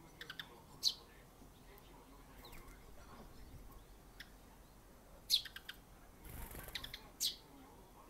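Eurasian tree sparrows chirping: short, sharp chirps scattered through, with a quick run of several a little past the middle.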